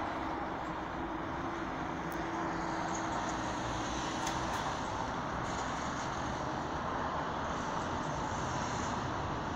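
Steady distant vehicle rumble, with a faint steady hum that stops about halfway through.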